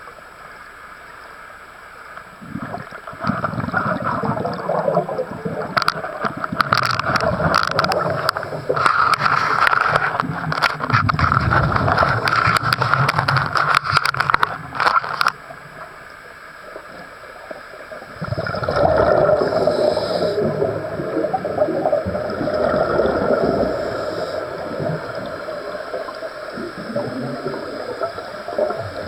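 A scuba diver's regulator breathing underwater, the exhaled air bubbling and gurgling past the camera in two long stretches with a quieter pause of a few seconds between them.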